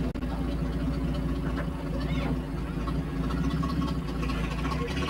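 WWII military jeep's four-cylinder engine idling steadily.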